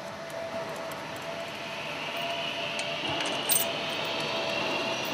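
Steady machinery hum with a steady tone in it, joined about two seconds in by a fainter high whine. A few light metallic clinks of hand tools and fittings come over it, the loudest about three and a half seconds in, while a lifting device is fitted onto a piston crown.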